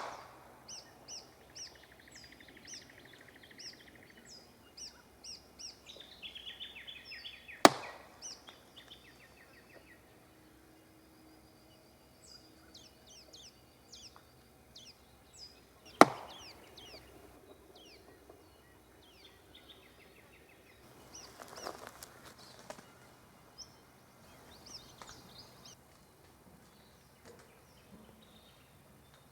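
Two sharp wooden tree knocks, wood striking a tree trunk, about eight seconds apart, over repeated high chirping of birds.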